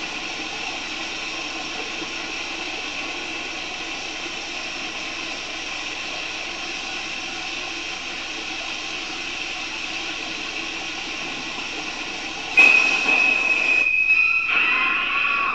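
Film-soundtrack shower water running, a steady hiss. About twelve and a half seconds in, screeching high violins cut in suddenly and loudly, with one shrill held note over sliding string shrieks.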